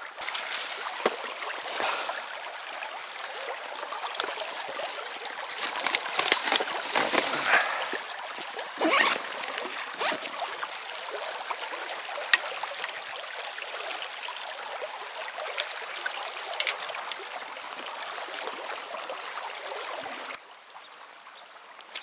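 Shallow stream rushing over a stony riffle, a steady even water noise with a few sharp knocks and splashes in it. About 20 seconds in the rushing drops away abruptly to a much quieter background.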